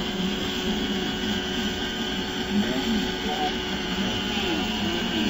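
Wedico Cat 966 RC wheel loader running, a steady mechanical hum and whine as its bucket lifts and tilts, with faint voices mixed in.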